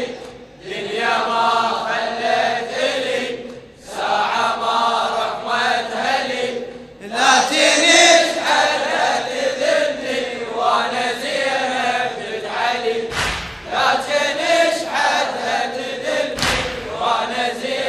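Voices chanting a Shia latmiya lament, sung lines with short breaks between phrases. Two low thumps come near the end.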